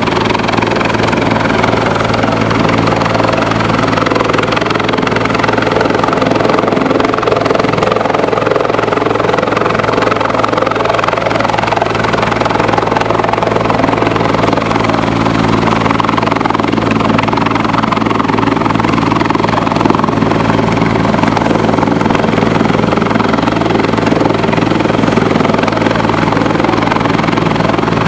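Search-and-rescue helicopter hovering, its rotor chop and turbine noise steady and loud.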